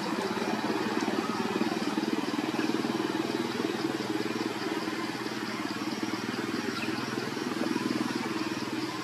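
A motor engine idling steadily, with a fast, even pulsing hum.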